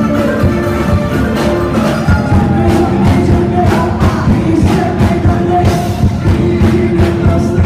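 Live band playing Turkish halay dance music through a PA, with a steady drum beat under a melody line.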